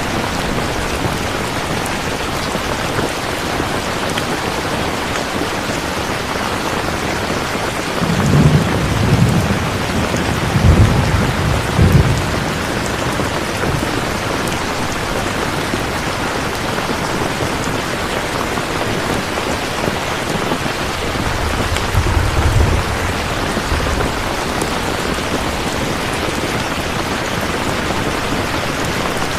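Steady heavy rain, with low rolls of thunder about a third of the way in and again past the middle.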